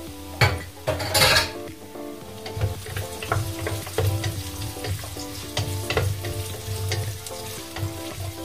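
Sliced onion going into hot olive oil in a pot, a loud sizzle about a second in, then frying steadily while being stirred with a wooden spatula that scrapes and taps against the pot.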